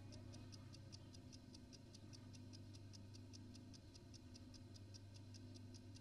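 A wall clock ticking faintly with a fast, even beat, over a low steady hum.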